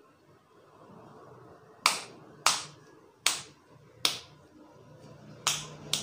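Six sharp, loud claps from a barber's hands striking during an Indian head massage, the first four about three-quarters of a second apart and the last two close together near the end.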